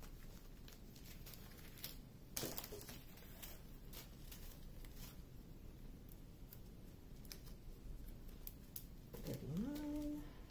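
Faint crinkling and clicking of small plastic zip bags of diamond painting drills being handled, with one sharper click about two and a half seconds in. Near the end, a person gives a short rising hum.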